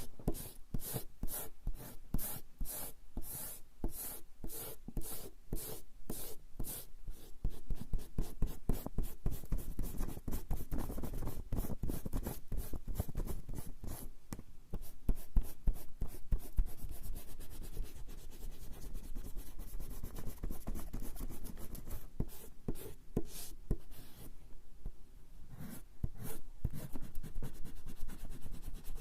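Rubber eraser rubbing back and forth on coarse straw paper (warabanshi) in quick, repeated scratchy strokes, pausing briefly a little over three-quarters of the way through before starting again.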